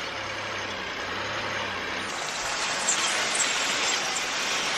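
Vehicle engine and winch running under load as a bogged vehicle is winched slowly out of soft sand; a steady mechanical noise that swells slightly about three seconds in.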